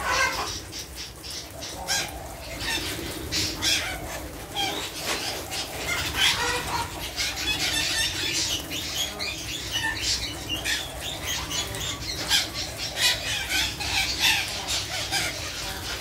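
A large flock of captive parakeets calling all at once: a dense, unbroken chatter of short high-pitched calls.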